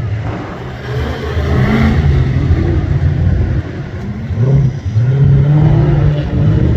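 Competition safari off-road vehicle's engine revving hard, its pitch climbing and dropping again and again as the driver works the throttle, loudest in the second half.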